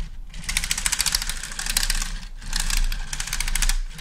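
Plastic track links of a COBI Panther Ausf. G brick model tank clicking rapidly as the tank is rolled by hand, in two runs with a short pause between them about halfway through.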